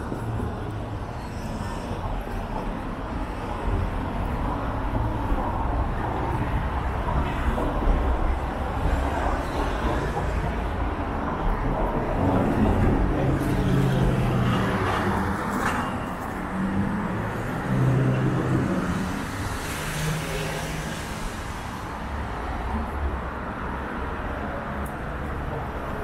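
Street traffic: a steady wash of cars driving by, with a low engine hum that comes and goes through the middle.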